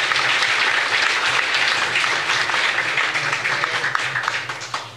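Audience applauding: a round of many hands clapping that dies away near the end.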